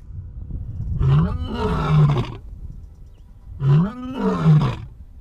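Lion roaring: two long roars, one about a second in and another near the end, each rising and then falling in pitch.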